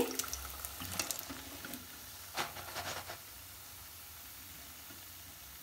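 Hot frying oil sizzling and dripping as a batch of deep-fried rice pathiri is lifted out of the kadhai in a wire skimmer, with a few light clicks. The sizzle dies down to a faint hiss after about three seconds.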